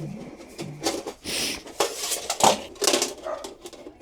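Thin sheet-metal dryer vent pipe being handled and worked with tin snips: scattered metallic clicks, rattles and scrapes.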